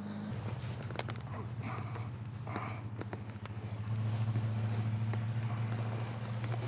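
Fence pliers working a fence staple out of an old dead tree trunk: a few sharp clicks and short scrapes of steel on wire and wood. Under them runs a steady low engine-like drone that grows louder about halfway through.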